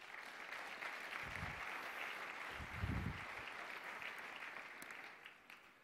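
Audience applauding in a large hall, a steady patter that swells a little in the middle and dies away near the end.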